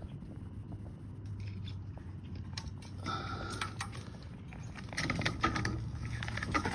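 Small metallic clicks and scrapes of a pre-looped wire tie being hooked around lapped half-inch rebar and spun tight with a spinner tie tool, growing busier in the second half, over a steady low hum.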